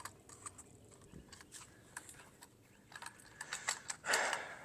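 Small clicks and scrapes of a plastic pool pop-up cleaning head being handled, with a short louder rustling scrape about four seconds in.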